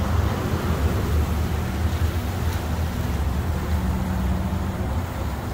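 Pan of octopus, tomato and olives in wine sauce simmering and sizzling as a spatula stirs tomato paste through it, over a steady low hum.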